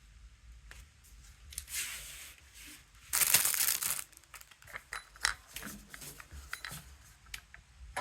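Handling noises: short rustles, then a loud rip or rasp lasting about a second, about three seconds in, followed by scattered light clicks and taps.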